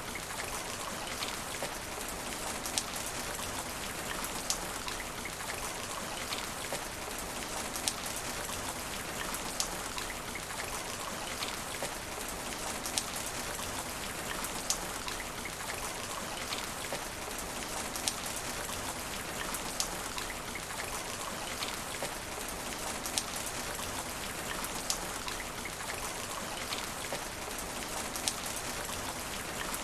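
Steady rain falling on asphalt, a continuous hiss with many sharp drip ticks, a louder drop about every second or two.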